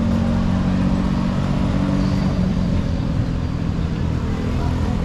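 Street traffic: a nearby motor vehicle's engine running with a steady low hum that drops a little in pitch a bit after two seconds in.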